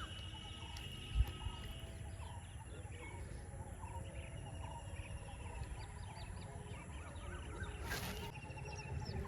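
Outdoor ambience of several birds chirping and calling over a steady high hum, with low wind-like rumble. A single low thump comes about a second in, and a short hiss near the end.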